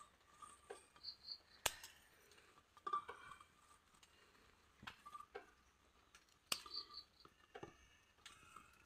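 Garden scissors snipping through plant stems: a few separate sharp snips, one to two seconds apart. Two brief runs of faint high chirps are also heard.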